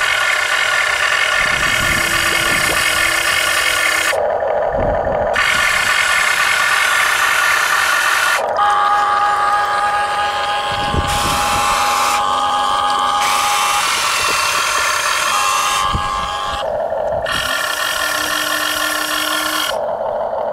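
Whine of a Huina radio-controlled excavator's electric motors and gearing, its pitch changing abruptly and briefly dropping away every few seconds as different functions of the arm and bucket are worked.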